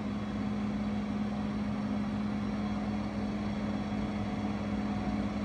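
Steady machine hum with one strong low drone and an even mechanical noise above it.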